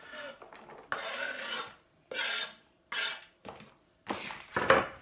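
Metal kitchen utensils rattling and scraping in four short bursts, about one a second.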